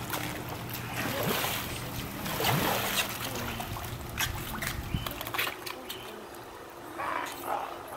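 Pool water splashing and trickling in short, irregular bursts as a small child swishes a foam pool noodle through the shallow water and lifts it out dripping.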